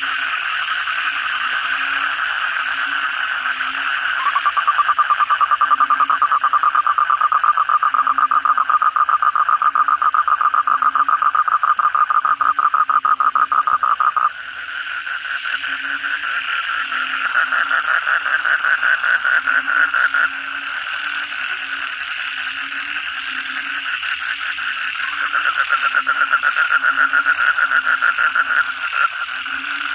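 A night breeding chorus of frogs and toads after heavy rain, including Asian common toads. Long, rapid trills overlap and take turns. One gets louder about four seconds in and cuts off halfway through, and others start and stop later. A lower croak repeats steadily underneath.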